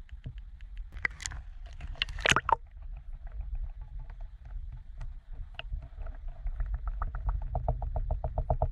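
Muffled underwater noise from a camera held in lake water: a low rumble with scattered clicks and knocks, the loudest a cluster about one to two and a half seconds in. From about six and a half seconds a rapid regular pulsing, about five beats a second, grows louder.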